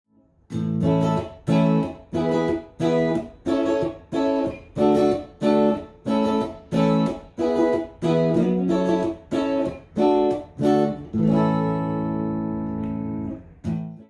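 PRS SE Custom 24 35th Anniversary electric guitar with both humbuckers split to single coil, played clean through a Fender Blues Deluxe Reissue amp. It plays short chords in a steady rhythm, about three every two seconds. Near the end a last chord is left to ring for two or three seconds, then cuts off suddenly.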